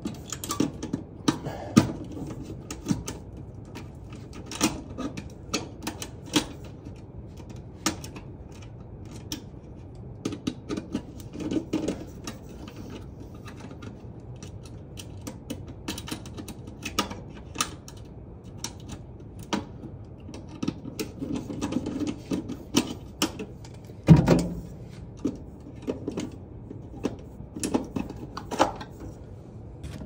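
Irregular clicks, taps and scrapes of a screwdriver and stiff wire conductors being worked at a ceiling-mounted fire alarm detector base, as the two loop wires of a backwards-wired device are swapped to correct the polarity. One heavier knock stands out about four-fifths of the way through.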